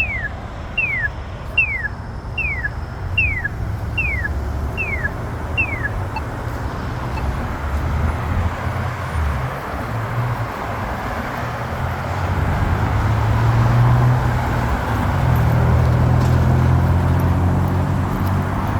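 A Polara iNS accessible pedestrian signal push button chirping: about eight short falling chirps, a little under one a second, which stop about six seconds in. Road traffic runs throughout, and engines grow louder in the second half.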